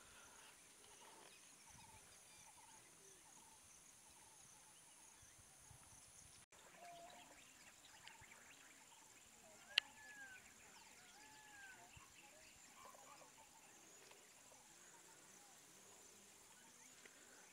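Faint outdoor ambience: a steady high insect drone, a few short rising-and-falling bird calls around the middle, and a single sharp click about ten seconds in.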